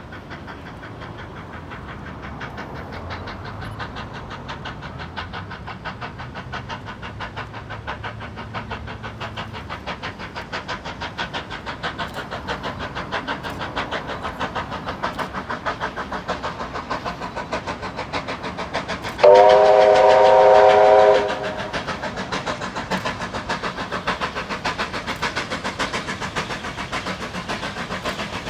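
Steam locomotive working hard as it approaches, its rapid exhaust beats growing louder, with one whistle blast of several tones lasting about two seconds, two-thirds of the way through.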